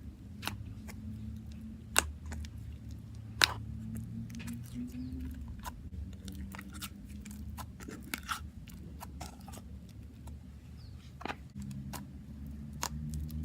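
Butter slime being squished and pressed by hand, making scattered soft clicks and small pops, with a few louder ones about two and three and a half seconds in and again near the end, over a steady low hum.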